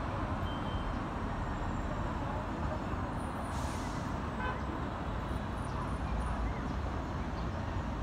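Steady road-traffic noise, a low, even rumble of vehicles.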